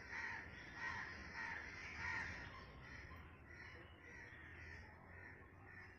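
Crows cawing repeatedly, loudest in the first two seconds, then fainter calls.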